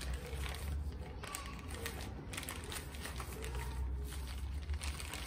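Plastic rice-packet liner crinkling and rustling in the hands as it is folded and pushed into a fabric tube, in short irregular crackles over a low steady hum.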